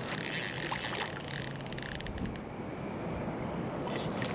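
Spinning reel's drag buzzing with a high whine and fast clicks as a hooked grass carp pulls line off, stopping about two and a half seconds in.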